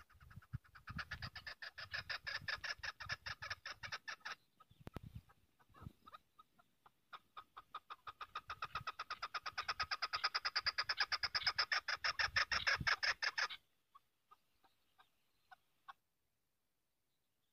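Chukar partridge calling: long runs of rapid clucking notes, about seven a second. The calling breaks off about four seconds in, builds again and stops suddenly, then a few scattered single notes follow.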